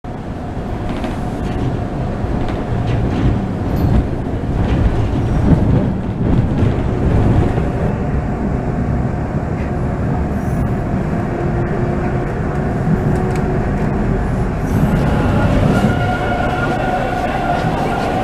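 Toronto TTC subway train (T1 cars) running on the rails: a steady rumble and rattle of the wheels with a faint motor whine. Near the end, clearer whining tones come in as a train moves at an underground station platform.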